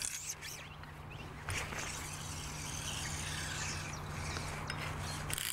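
Steady outdoor background: a low hum under a rushing hiss that swells for a few seconds, with a few faint bird chirps.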